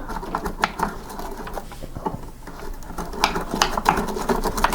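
Small cleaning brush scrubbing coffee grounds out of the burr grinder housing of a Breville coffee maker: irregular scratchy clicks and taps, busier in the second half.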